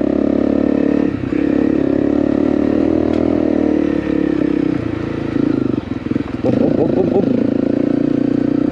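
Honda CRF250L's single-cylinder four-stroke engine running steadily while riding a gravel road. It dips briefly about a second in and again around four seconds, with a deeper drop near six seconds as the throttle is rolled off, then picks back up.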